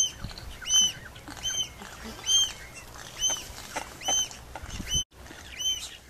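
Swallow-tailed gull calling while mating: a string of short, high notes, each rising and then falling in pitch, about one a second, over a low steady rumble.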